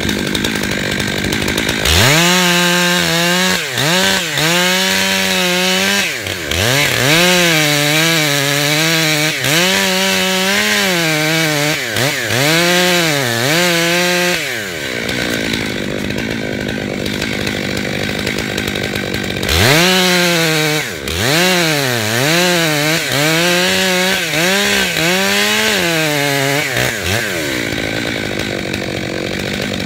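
Two-stroke chainsaw running, its engine revving up and down over and over in two long spells, with a steadier stretch between them.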